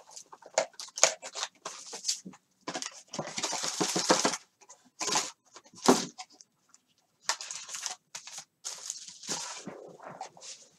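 Plastic wrap and cardboard packaging of a trading-card box being torn off and handled: irregular bursts of crinkling and tearing with short pauses, and one sharp snap about six seconds in.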